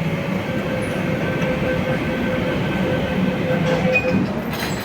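MTR C-train metro train running, a steady rumble with a faint held tone above it; a short noisy burst near the end.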